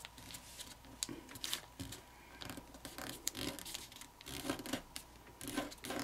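Thin origami paper (kami) being turned over and folded by hand: faint, irregular rustling with small ticks and scrapes as the layers are pressed and creased.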